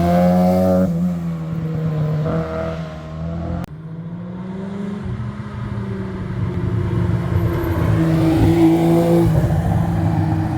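Rally car engines at high revs on a special stage. The sound breaks off suddenly about three and a half seconds in, then a car's engine climbs in pitch and grows louder as it accelerates closer, easing off near the end.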